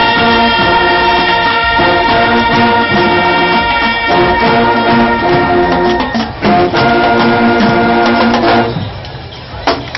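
Marching band's brass section (trombones, sousaphones, saxophones and trumpets) playing loud sustained chords, with a short break about six seconds in. The horns stop near the end, leaving only a few sharp percussive hits.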